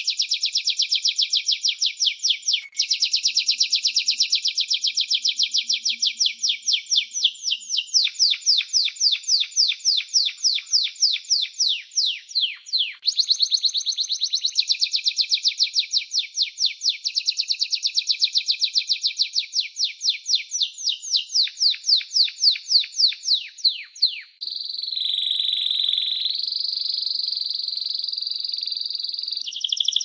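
Canary singing a continuous song of fast trilled rolls, each run of repeated notes changing speed and pitch every few seconds. Near the end it switches to one long, steady whistled note.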